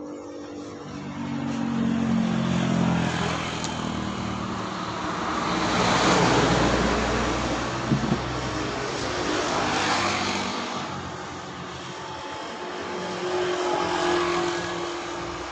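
Road traffic: motor vehicles passing one after another, the noise swelling and fading about four times, with an engine note dropping in pitch as the first one goes by. A single short knock about eight seconds in.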